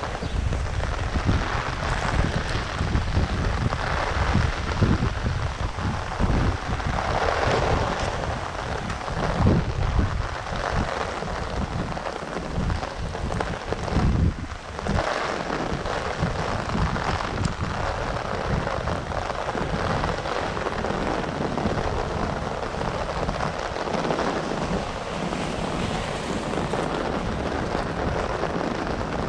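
Heavy rain hissing down while strong wind gusts buffet the microphone in deep rumbling surges. The gusts are strongest in the first half and ease after about halfway, leaving mostly the rain.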